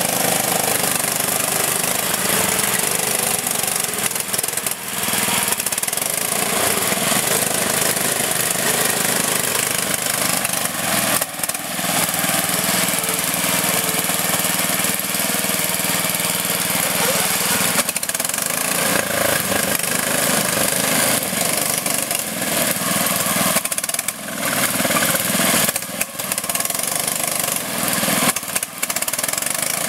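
Riding lawn mower engines running steadily as the mowers drive through a mud hole, their engine note shifting now and then.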